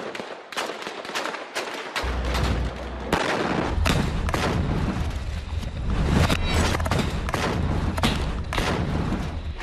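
Rifle gunfire: many sharp shots, some in quick succession, with a low rumble underneath from about two seconds in.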